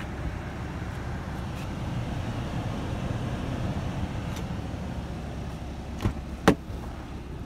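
Steady low rumble, with two sharp knocks about six seconds in, the second louder.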